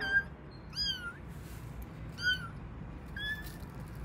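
Kittens mewing: four short, high-pitched mews about a second apart, each sliding up or down in pitch.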